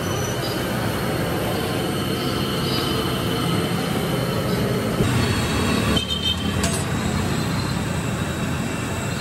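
Hot milk gushing from the tap of a large steel milk kettle into a metal tin, a steady pouring and splashing over a low rumble.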